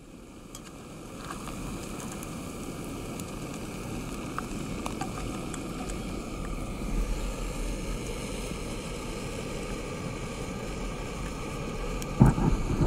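Small canister gas stove burning steadily under a skillet of morels frying in oil, the burner's steady rush mixed with the oil's sizzle. A short knock near the end.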